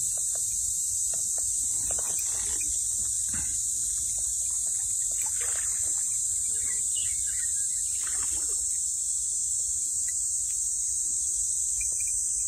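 A steady high-pitched insect drone, typical of a cicada chorus, over a low rumble, with brief soft rustles of plants.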